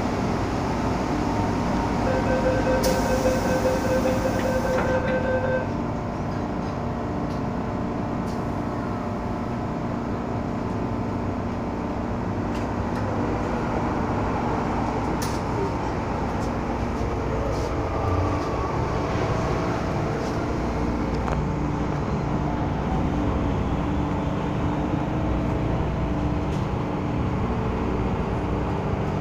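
MTR M-Train subway car at a station: a run of door-closing warning beeps about two seconds in, with a short hiss as the doors shut. The train then pulls away, its traction motors humming and the car rumbling along the track.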